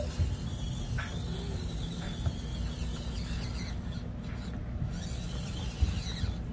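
An Axial Deadbolt RC rock crawler creeping over obstacles: a steady low drivetrain whir, with rubbing and scraping from its tires and chassis on the course and a few small clicks.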